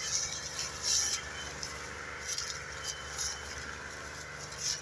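Farm tractor's diesel engine running steadily under load as it pulls a heavily loaded sugarcane trolley, with a few short bursts of high hiss over it.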